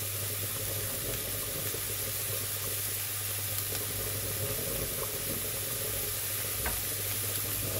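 Button mushrooms and zucchini sizzling in a pan: a steady frying hiss, with a low steady hum underneath and a few faint ticks.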